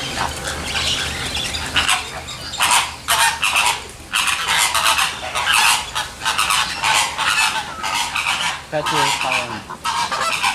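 A group of flamingos honking, a rapid, overlapping run of short calls that thickens a few seconds in.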